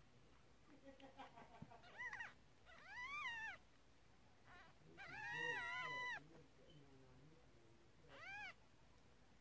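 Newborn kittens mewing: four high, thin cries that rise and fall in pitch. The third cry is the longest and loudest, about a second, and the last is a short one near the end.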